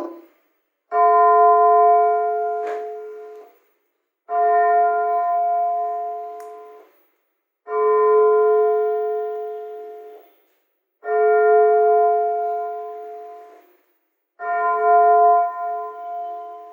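Church bell tolling slowly from an automatic church bell unit: five strokes, one about every three and a half seconds. Each stroke rings out and dies away before the next.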